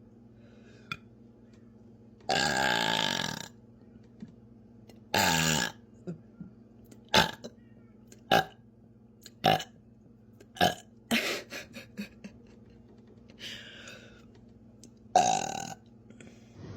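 A woman burping over and over: a long, drawn-out burp about two seconds in, a shorter one a few seconds later, then a run of short burps roughly a second apart, and a louder burp near the end.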